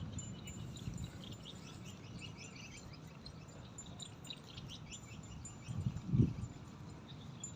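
Small birds chirping over and over against a low outdoor hum, with a brief low rumble about six seconds in.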